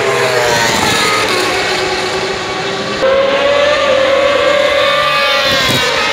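World Superbike racing motorcycles at high revs passing down the main straight, the engine pitch dropping as each goes by. About three seconds in a louder pass begins abruptly; its pitch rises, then falls away near the end.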